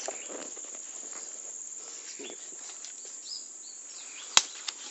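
Insects buzzing steadily in the riverside vegetation, with a few faint bird chirps and one sharp click near the end.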